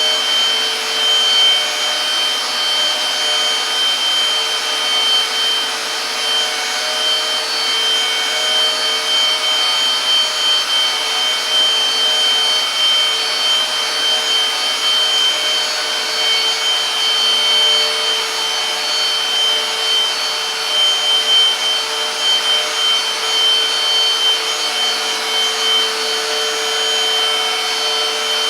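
Silvercrest Cordless Cyclone Aqua handheld vacuum cleaner running steadily in wet-mop mode, its motor holding one constant high-pitched whine while the rotating mop pads scrub dried stains off the floor.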